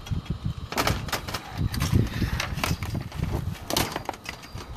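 Irregular clicks and knocks of hands and tools on solar racking and metal conduit, over a low, uneven rumble.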